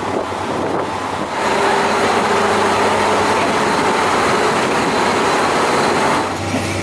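Aso Boy diesel railcar idling at the platform: a steady mechanical hum and hiss with a few held tones. It swells about a second in and eases near the end.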